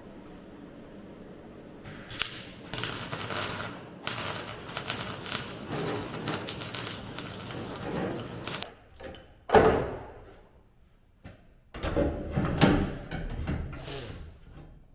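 Metalwork at a car body: a dense crackling, clattering stretch of several seconds, then a sharp metallic knock and a few more knocks and clatter near the end.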